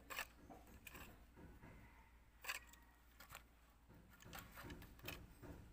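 A few faint clicks and taps of hard plastic being handled: a digital clamp meter's case and its removed battery cover. The clearest click comes about halfway through.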